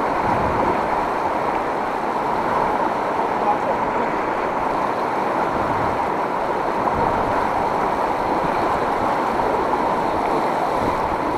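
Steady rushing of fast-flowing river water, an even noise with no breaks or distinct events.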